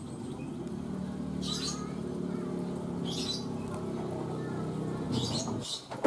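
Small caged birds giving about four short, high-pitched chirps over a steady low hum that stops shortly before the end.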